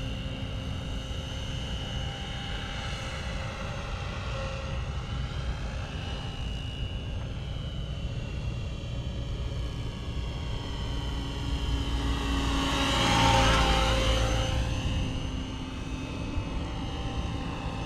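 Align T-Rex 700 RC helicopter in a Bell Jet Ranger scale body flying, its rotor and drive whine steady at a distance. It grows louder as the helicopter passes close about 13 seconds in, the pitch dropping as it goes by.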